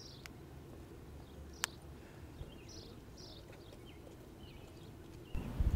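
Faint outdoor ambience: a low steady background hum with a few short bird chirps and two sharp clicks. A louder low rumble starts suddenly near the end.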